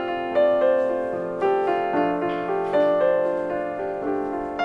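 Background piano music: a slow, gentle melody of struck notes and chords, each note left to ring and fade.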